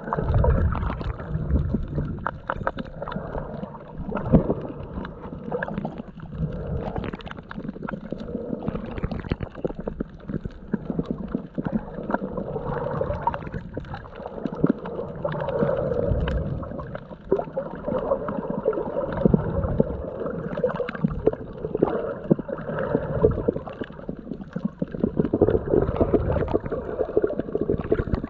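Muffled water gurgling and sloshing around a camera held underwater, with scattered small clicks and knocks and slow swells in loudness.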